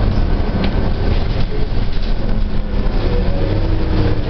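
Bus running, heard from inside the passenger cabin: a steady, loud low rumble of engine and road noise.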